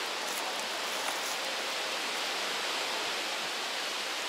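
Steady, even outdoor background hiss with no distinct sounds in it.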